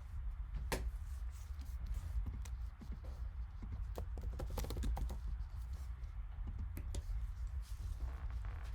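Irregular light clicks and taps, a few to several a second, over a steady low hum.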